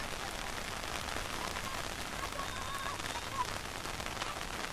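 Steady rain falling: an even hiss thick with the ticks of individual drops hitting surfaces.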